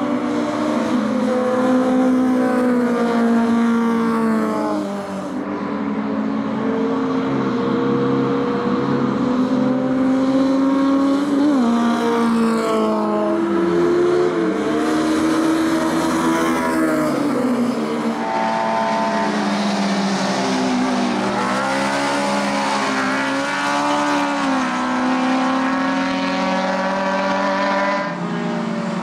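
Several 1.3-litre four-cylinder touring cars (Ladas, Samaras and a Zastava) racing past one after another. Their engines overlap, rising and falling in pitch as they rev through the corner and change gear, with one sharp dip and recovery about halfway through.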